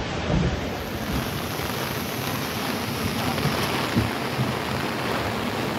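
Heavy rain and wind over a rough lake, with waves splashing against the bank: a steady rushing noise with a few brief knocks.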